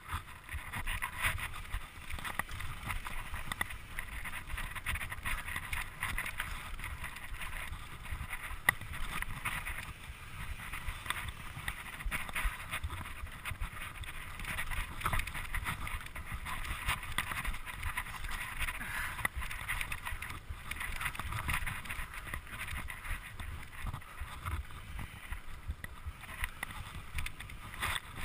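Mountain bike riding over a dirt singletrack trail: a steady rushing of tyres and wind, broken by many small knocks and rattles as the bike runs over bumps.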